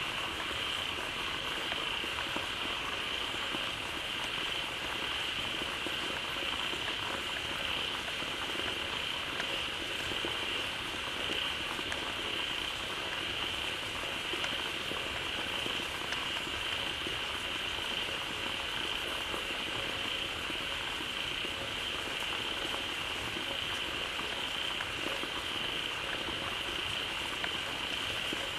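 Dense chorus of many frogs calling together at a pond, a steady unbroken din of overlapping croaks and clicks, the frogs gathered to call after fresh water has flowed into the pond.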